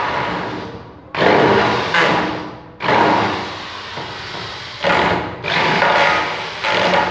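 Handheld electric drill/driver run in repeated short bursts, each spinning up sharply and winding down, as it backs screws out of the housing of a metal cut-off saw.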